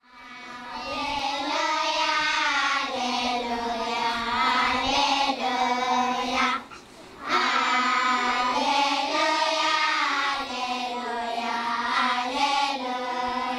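A large group of children singing together, fading in at the start, with a short break for breath about halfway through before the next phrase.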